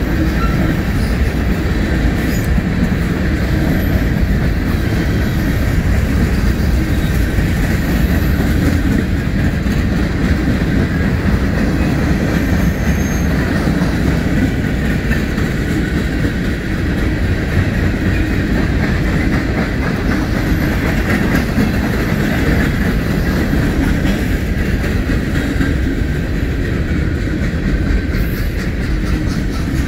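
Freight train cars, covered hoppers and boxcars, rolling past: a steady rumble and clatter of steel wheels on the rails.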